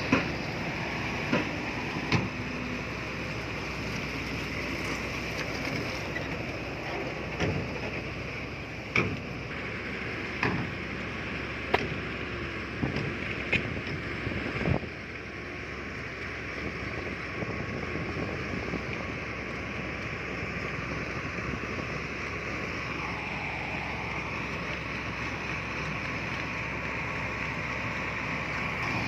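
Heavy diesel earthmoving machinery running steadily, with sharp metallic clanks and knocks coming at irregular intervals through the first half.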